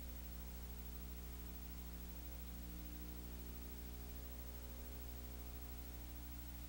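Steady electrical hum with a stack of overtones over faint hiss, unchanging throughout, with no game sound, crowd or voice.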